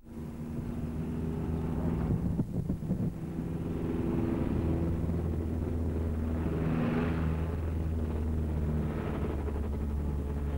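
City bus engine running steadily as the bus drives along a highway, a low even hum with a steady drone over it.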